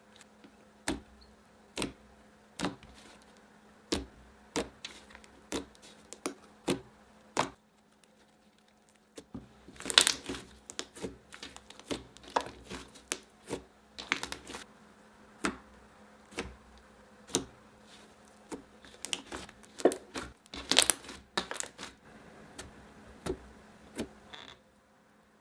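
Butter slime being worked by hand, making sharp clicking and popping sounds. The clicks come about once a second at first, then give way to denser bursts of crackling pops.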